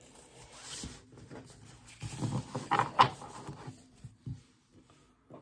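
Baseball cards and pack wrappers being handled: rustling and crinkling, with a louder flurry about two to three seconds in.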